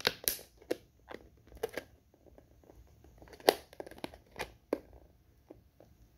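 Jenday conure biting and chewing at a clear plastic drink-cup lid: irregular crackling clicks and crunches of plastic, with one louder crack about three and a half seconds in. The clicks thin out near the end.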